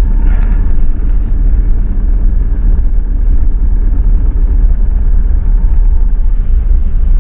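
Van driving along, heard from inside the cab: a steady low rumble of engine and road noise.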